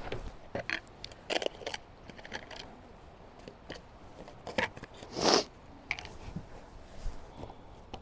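A scatter of irregular small clicks and knocks, with one louder, brief scraping rustle about five seconds in.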